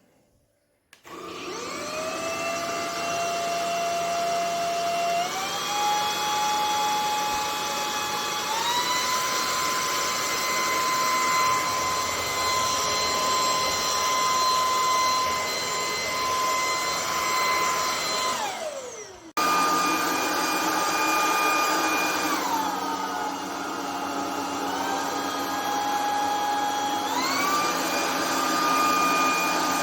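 Anyson cordless stick vacuum's motor starting up and running with a high whine and rush of air, stepping up in pitch twice as it is switched up through its power levels. About two-thirds through it winds down, then comes straight back on high, drops to a lower setting and steps up twice again.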